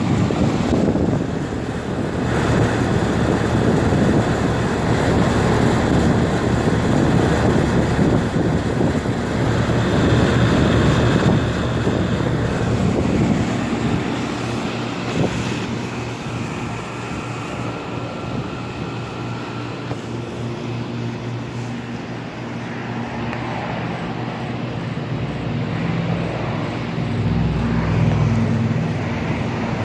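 Outdoor central air conditioner condenser units running: a steady low hum under the whoosh of the fan.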